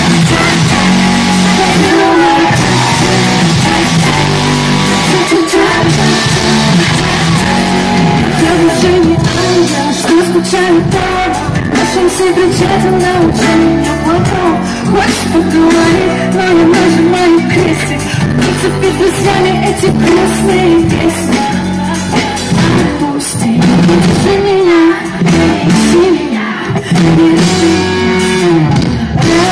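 Live pop-rock concert music played loud, with guitar, a steady drum beat and a singing voice carrying the melody.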